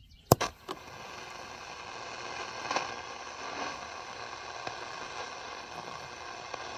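A sharp click, then steady shortwave static from a Zenith Trans-Oceanic Royal 7000 radio tuned across the 19-meter band: an even hiss with faint steady tones in it, and no station locked in yet.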